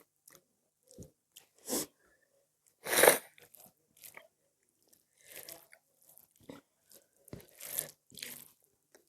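Close-up eating sounds: a person biting and chewing food with irregular short crunches, the loudest about three seconds in.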